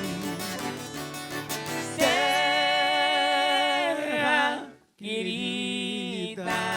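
Sertanejo caipira music between sung lines: quick plucked-string notes, then about two seconds in a held, wavering melody note over the accompaniment. Near the middle the sound drops out abruptly for a moment and the music resumes.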